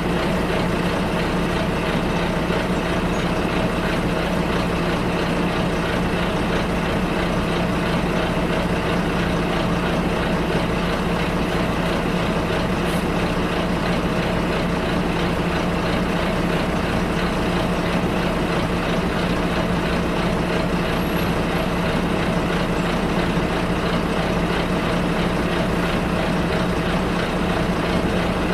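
Bus engine running, heard from inside the bus: a steady low hum over an even rumble of noise that does not change.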